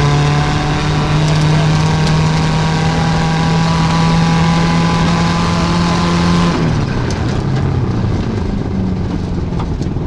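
Turbocharged 2.0-litre Subaru flat-four of a WRX STI rally car, heard from inside the cabin, held at high, steady revs for about six and a half seconds. Then the driver lifts off and the revs fall away, with a few sharp pops.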